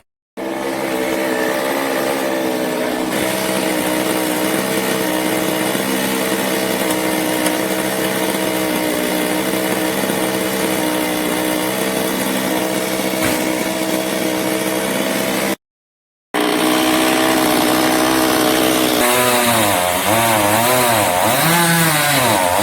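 Chainsaw running steadily, presumably cutting a coconut tree. Its engine note cuts out suddenly for under a second past the middle, and near the end the pitch dips and rises several times.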